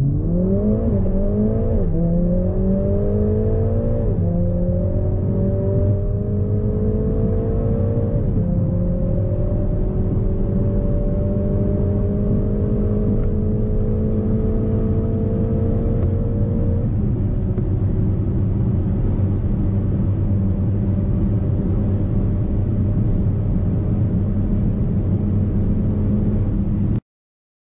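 Mercedes-AMG A45 S's turbocharged 2.0-litre four-cylinder under full-throttle acceleration, heard from inside the cabin. Its note climbs through each gear and drops at about five quick upshifts that come further apart as speed builds. The sound cuts off abruptly near the end.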